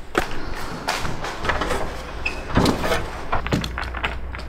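Footsteps climbing a fiberglass ladder and stepping onto a plywood subfloor: a run of irregular knocks and clunks.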